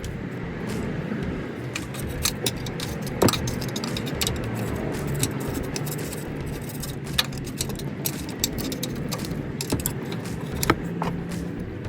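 Scattered clinks and rattles over a steady low hum, with the sharpest knocks about three seconds in and just before the end.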